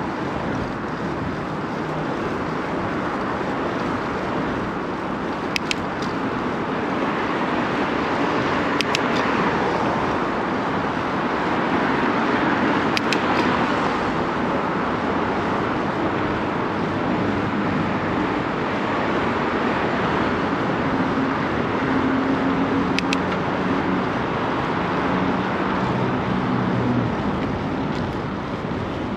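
Downtown street traffic heard from a moving bicycle: a steady rush of car engines and tyres that swells and fades as vehicles pass, with a low engine hum in the second half. A few sharp clicks are heard along the way.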